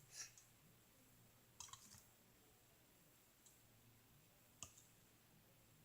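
A handful of faint, irregular clicks and taps of plastic cups and a stirring stick being handled while making slime, over near silence.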